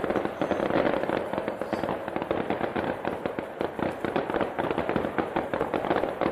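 Fireworks going off in a dense, continuous crackle of many rapid small pops.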